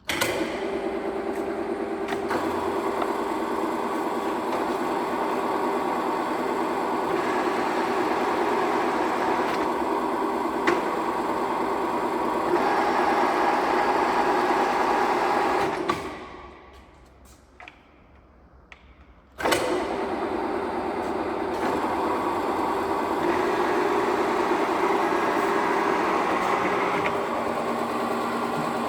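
Pedersen VPU 201 milling machine running with a steady mechanical hum of several tones. It winds down about halfway through, is nearly silent for a few seconds, then starts up sharply again.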